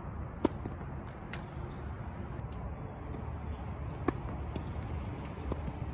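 Tennis racquet strings striking the ball on a serve: a sharp pop about half a second in and another a little after four seconds, over a steady low outdoor background.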